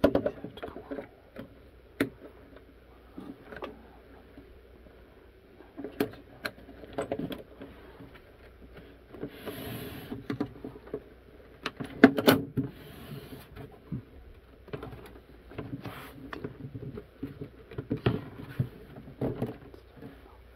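Plastic case of a Radio Shack TRS-80 Model 4P portable computer being handled and shifted on a wooden table: irregular clicks and knocks with a few short scrapes. The loudest cluster of knocks comes a little past the middle.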